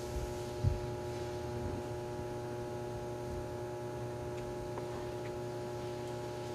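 Steady electrical hum made of several fixed tones, with one soft low thump about two-thirds of a second in.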